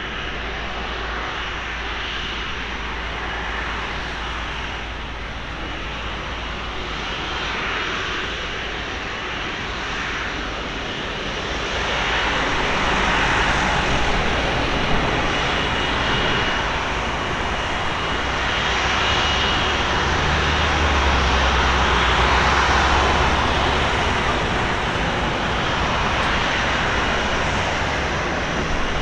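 Airbus A330-300's twin turbofan engines running at low taxi power as the airliner rolls slowly along the ground, a steady rushing noise with a thin high whine. It grows louder about twelve seconds in as the aircraft nears.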